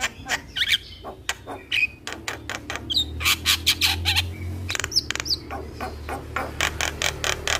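Javan myna (jalak kebo) singing in a rapid chattering run: harsh clicking and rasping notes packed close together, broken by a few quick gliding whistles.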